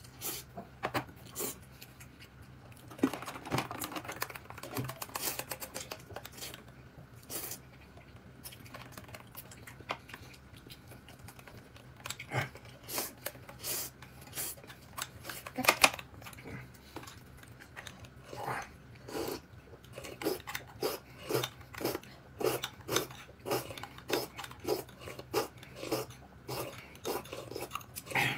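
Spoon and bowl clinking and scraping during a meal, with chewing. There are scattered sharp knocks, one louder about sixteen seconds in, then a steady run of about two small clicks a second in the second half.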